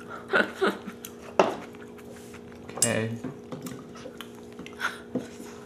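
Eating utensils knocking and scraping against a metal tray of kimchi stew: a few separate clinks and knocks, spaced unevenly, over a faint steady hum.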